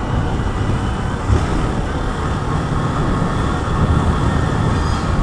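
Honda CG 160 Fan's single-cylinder four-stroke engine running steadily at low revs while the motorcycle rides along, with wind and road noise on the helmet-mounted microphone.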